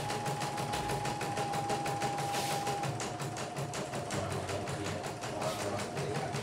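YOKO portable computerized embroidery machine stitching out lettering, its needle moving in a rapid, even rhythm, with a steady whine underneath that drops slightly about three seconds in.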